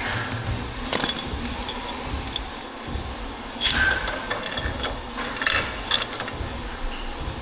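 Metal tools and engine parts clinking and clattering during engine repair work, a few sharp knocks with brief ringing, the loudest clusters about a second in, near the middle and around five and six seconds in.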